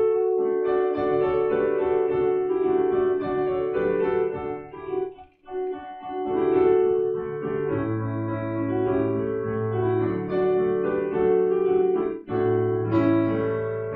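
Piano playing a Christmas tune, with a short break in the playing about five seconds in.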